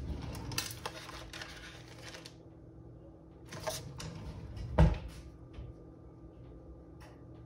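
Tarot cards being handled on a cloth mat: a papery rustle of card stock for the first couple of seconds, then a few light taps, the loudest a dull thump about five seconds in.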